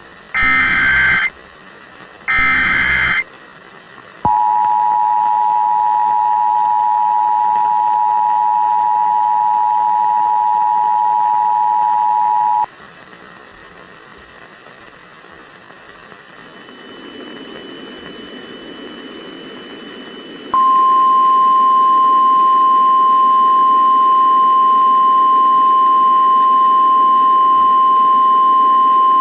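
Emergency Alert System signalling: two short harsh SAME data bursts, then the two-tone EAS attention signal held steady for about eight seconds. After a few seconds of static hiss, a single steady weather-radio-style warning tone starts about twenty seconds in and carries on.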